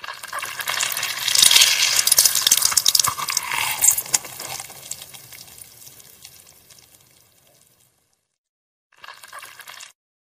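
Peeled pink citrus fruit squeezed in a bare fist: wet squelching and crackling of the pulp with juice running out. Loudest in the first four seconds, dying away by about eight seconds, then one brief squelch again near the end.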